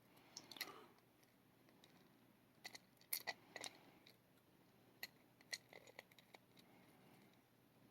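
Faint, irregular small clicks of tiny lock pins from a gutted Yale pin tumbler lock being nudged into a line on a work surface.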